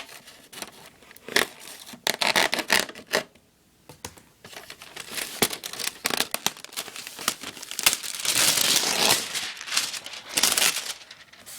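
Packaging being cut with a knife and torn open: irregular scratching, ripping and crinkling of tape, cardboard and plastic, with the longest rip about eight seconds in.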